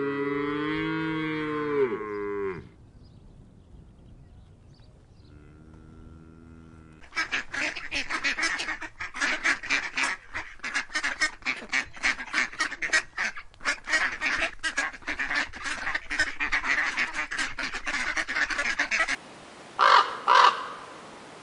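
A cow's long moo ends about two and a half seconds in. After a brief faint call, a flock of ducks and geese sets up a dense, rapid clamour of quacks and honks for about twelve seconds. Near the end a crow caws loudly twice.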